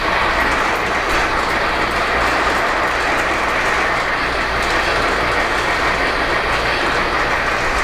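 O-gauge electric model train running on its track: a steady rolling rumble and clatter of wheels on rail, with a low motor hum underneath.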